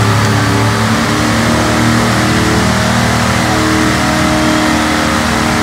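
Lifted mud truck's engine running hard at high revs, held nearly steady in pitch, as the truck drives through a deep mud pit under heavy load.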